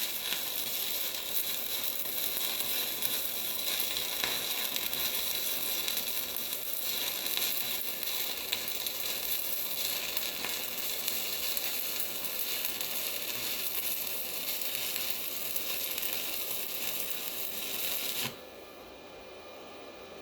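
Stick-welding arc from a 135-amp 110-volt portable welder burning a 3/32-inch 7018 rod: an even, steady hiss that cuts off sharply about 18 seconds in when the arc is broken.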